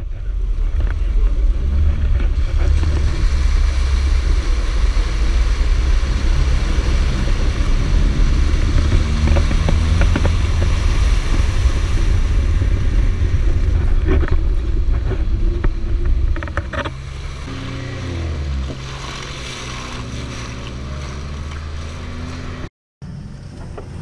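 Lada Niva's engine running as it drives along a muddy track, heard from a camera on the bonnet with wind noise over it. About two-thirds of the way through it gets quieter and the engine note shifts, and near the end the sound drops out for a moment at a cut.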